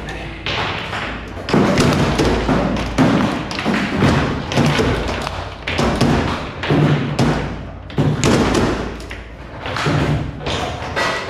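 Frimm Super Faster foosball table in play: the ball struck hard by the players on the rods and banging off the table, an irregular run of sharp thumps and knocks.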